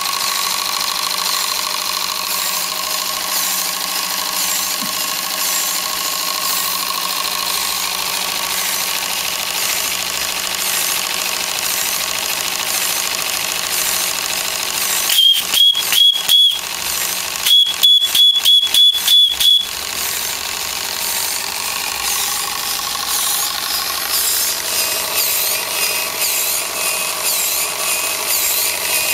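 Small model steam engine and steam-driven water pump running with a steady, fine rhythmic ticking. About halfway through, a loud high beep sounds four times in quick succession, and then about seven more times.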